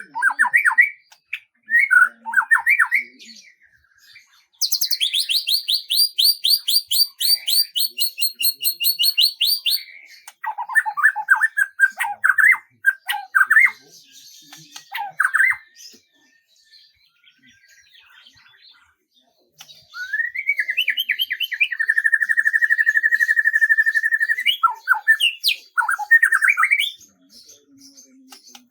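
A songbird singing varied phrases of chirps. A long, fast, high trill runs for about five seconds, more chirping phrases follow, and later comes a lower, steadier trill of about three seconds.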